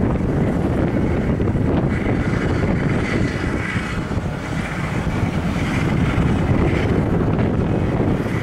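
Boeing 777-300ER on final approach, its two GE90-115B turbofans giving a steady jet engine noise with a faint high whine. Wind buffets the microphone.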